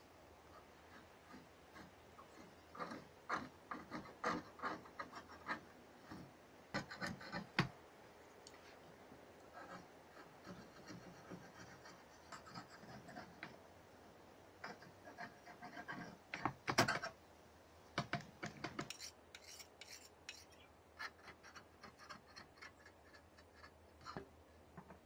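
Faint, irregular scrapes, rubs and clicks of hand-knotting on a carpet loom: fingers working wool yarn around the warp threads and a small knotting knife cutting the yarn. The strokes come in short clusters, with one louder snap about two-thirds of the way through.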